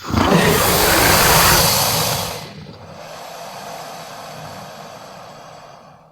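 Creature sound effect: a loud, breathy hissing rush lasting about two and a half seconds, dropping to a quieter hiss that fades out near the end.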